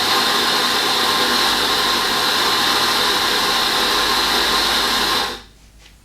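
On-demand coffee grinder's motor running as it grinds a dose of espresso beans. It starts abruptly and cuts off after about five seconds.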